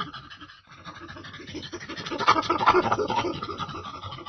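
Monkey making rapid, raspy, scratchy noises without a clear pitch, growing louder about two seconds in.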